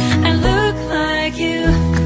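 Background music: a pop song, a sung melody over steady bass notes.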